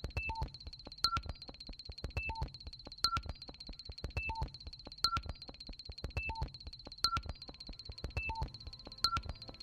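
Sparse electronic music: about once a second a sharp click sounds with a quick figure of three short synthesizer beeps at different pitches, over fine ticking and a steady high whine.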